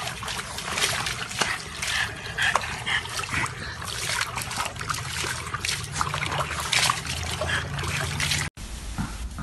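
Water splashing and sloshing in a plastic tub as a small dog thrashes about in it, water spilling over the rim onto concrete. The splashing cuts off suddenly near the end.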